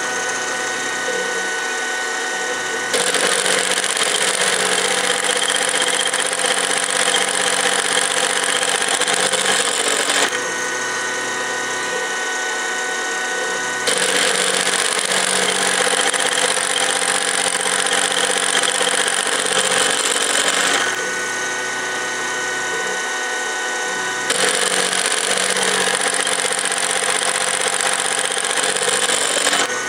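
Sharp milling machine face-milling a steel clamp blank: steady spindle and motor running with the cutter grinding through the metal. It grows louder for three stretches of several seconds each, with quieter running between them.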